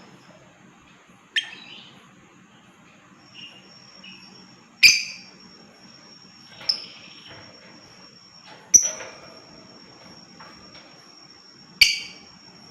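Lovebirds calling: five loud, shrill, sharp chirps a second or two apart, over a thin steady high-pitched tone that comes and goes.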